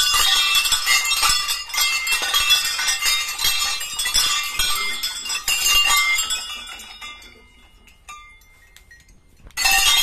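Cluster of hanging brass temple bells rung by hand, clanging over and over in a dense, overlapping jangle. The ringing dies away about seven seconds in and the bells are struck again just before the end.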